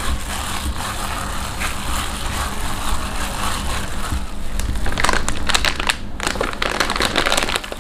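A plastic-gloved hand kneading and squishing sticky fish-and-tapioca pempek dough in a stainless steel bowl, with plastic crinkling from the glove and the starch bag. The crinkling grows denser and louder about five seconds in.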